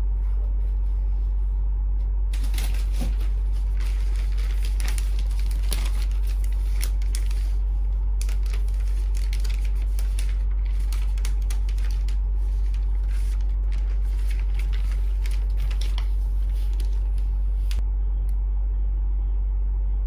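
A steady low hum, the loudest thing throughout, with dense crackling, clicking and rustling from about two seconds in until near the end.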